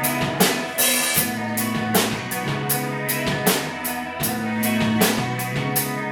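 A live rock band plays an instrumental passage between vocal lines. A drum kit keeps a steady beat with bass drum, snare and cymbals over sustained bass and chordal instrument tones.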